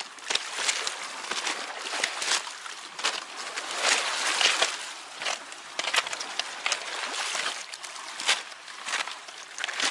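Small waves washing over a pebble beach: a steady wash full of irregular crackles from the stones, swelling about four seconds in.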